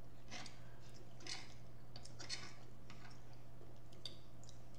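Eating at close range: soft, irregular clicks and smacks of chewing and of a knife and fork cutting food on a plate, over a steady low hum.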